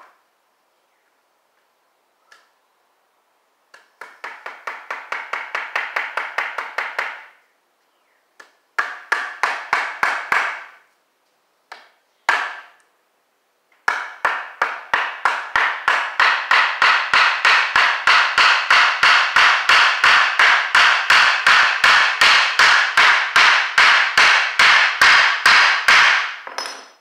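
Small hammer tapping a toothed metal wood joint fastener into a board: runs of quick light strikes, about four a second, broken by short pauses. The last and longest run is louder and keeps a steady pace.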